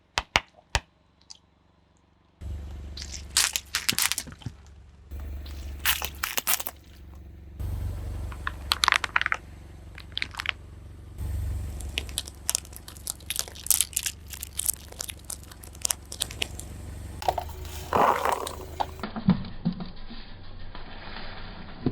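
A car tyre rolling over and crushing brittle objects: repeated bursts of cracking and crunching over a low rumble, in several short separate takes. A few sharp clicks come at the very start, then a pause of about two seconds before the crushing begins.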